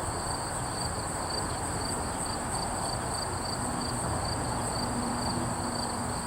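Crickets chirping steadily in a high, evenly pulsing trill, over a steady low rumble of background noise.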